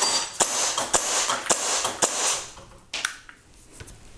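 Airsoft gun firing a quick string of BBs at small steel practice targets: sharp pops and metallic pings, about three a second over a high hiss. They stop after about two and a half seconds, and one more ping follows about three seconds in.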